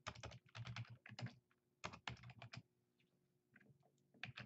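Typing on a computer keyboard in quick runs of keystrokes, with a pause of about a second past the middle.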